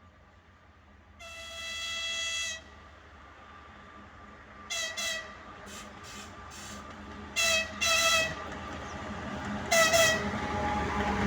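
Horn of a 2TE116U diesel locomotive sounding one long blast, then several pairs of short blasts. The locomotive's rumble grows louder toward the end as it approaches.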